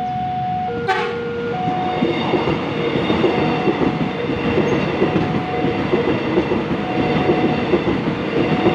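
KRL electric commuter train passing over a level crossing, its wheels clattering on the rails and growing louder about two seconds in. Under it the crossing's electronic warning alarm keeps sounding in alternating two-note tones, and a short sharp sound comes about a second in.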